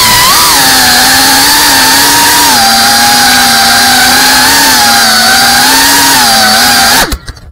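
FPV racing quadcopter's brushless motors and propellers whining loudly, heard through the craft's own onboard camera, with the pitch wavering as the throttle changes. The motors stop suddenly near the end as the quad lands.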